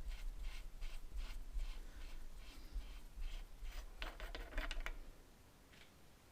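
Faint clicks and scrapes of the metal parts of a dismantled tractor hydraulic coupler being handled, a little louder about four seconds in, then near silence from about five seconds on.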